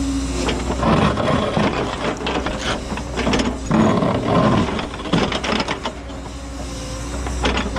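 Cat 314E excavator running while its ripper tooth grinds and cracks through hard bluestone rock, in irregular bursts of scraping and breaking.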